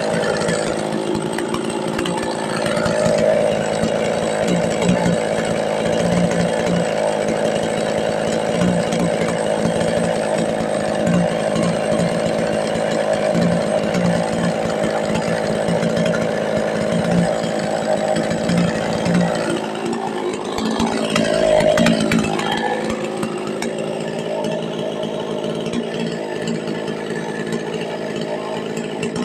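Stihl two-stroke chainsaw engine running steadily at speed; about two-thirds of the way through its note drops and then climbs back up.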